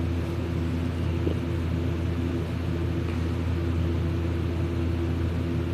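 A man snoring loudly in deep sleep, a steady low rasping drone whose upper tones fade briefly about two seconds in and then return.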